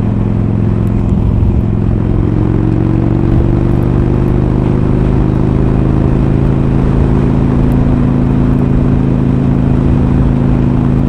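Harley-Davidson Iron's V-twin engine, with Screamin' Eagle slip-on mufflers, running steadily. Its pitch rises slightly a few seconds in.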